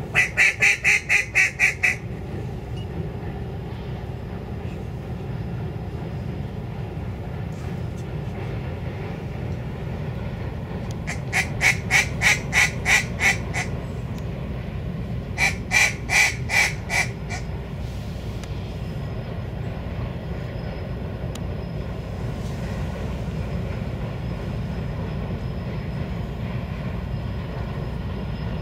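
Hand-blown duck call sounding three strings of rapid hen-mallard-style quacks: about eight at the start, then two shorter strings about eleven and fifteen seconds in. It is a hunter calling to bring ducks in over the decoys.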